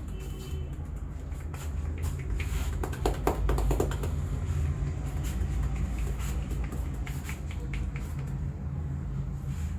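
Hands working over the head and neck in a massage: skin rubbed, with many scattered sharp slaps and clicks, thickest about three seconds in, over a low steady rumble.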